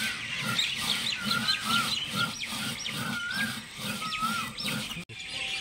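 Outdoor animal calls: birds chirping in many quick, short rising notes, with a repeated wavering call about once a second, over a low, rhythmic pulsing.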